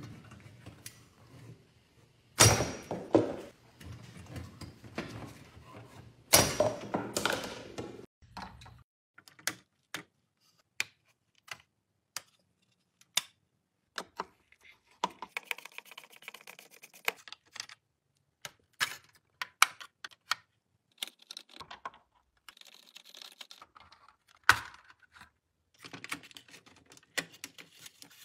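Two loud clattering crashes, about two and six seconds in, as plastic cups are knocked over. Then a long run of sharp small clicks and taps of a screwdriver working screws out of a vintage plastic toy's hull, with a quick burst of fast ticks about halfway through.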